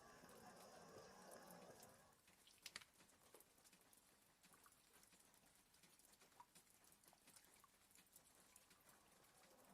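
Very faint: a sleeping dog's soft snoring breath for about the first two seconds, then a long pause, with light rain ticking against a window throughout.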